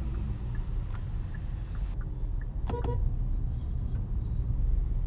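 Steady low rumble of a Hyundai Exter's 1.2-litre Kappa engine and tyres on the road while driving, heard from inside the car. A brief faint chirp comes a little past halfway.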